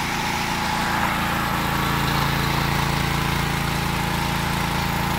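A 15 hp gasoline engine running steadily, belt-driving a grain auger, with a steady hiss above the engine note.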